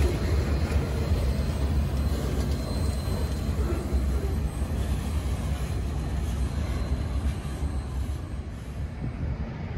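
Freight boxcars rolling along the rails, a steady low rumble of wheels on track that slowly fades as the train moves away.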